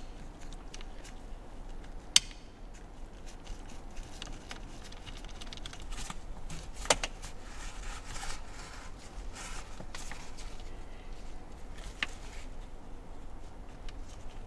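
Small retaining screw on a car's clock spring unit being fitted and driven in by hand: scattered light clicks and taps of the screwdriver and parts, with a few sharper clicks.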